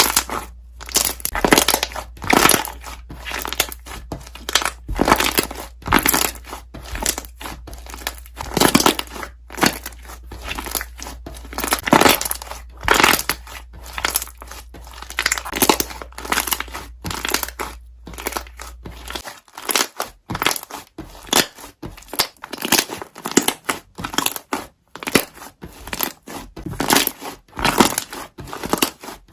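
Slime being squeezed and folded by hand, trapped air bubbles popping and crackling in quick, irregular bursts.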